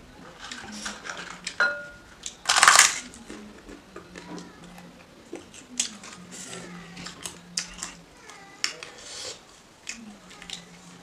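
Close-up eating sounds of spicy soup noodles: slurping and chewing, with one loud slurp a few seconds in and chopsticks clicking against a glass bowl.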